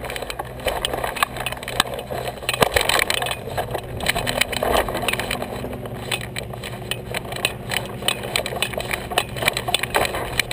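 Hang glider's aluminium control frame and base-bar wheels rattling and knocking irregularly as the glider is moved over bumpy grass. A steady engine hum runs underneath.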